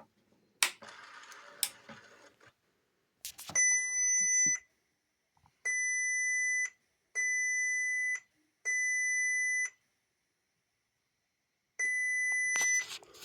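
2005 Porsche Cayenne Turbo instrument cluster, powered up for a test after repair, sounding its warning buzzer: five steady high-pitched beeps of about a second each, one to two seconds apart, after a couple of clicks near the start.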